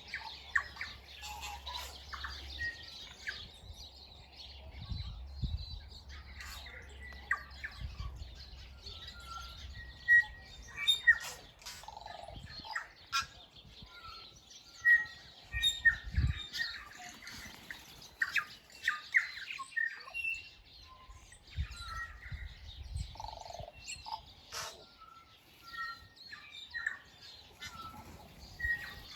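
A chorus of wild garden birds: many overlapping short chirps, tweets and whistled notes from several birds calling at once. A low rumble comes and goes beneath them, strongest about halfway through.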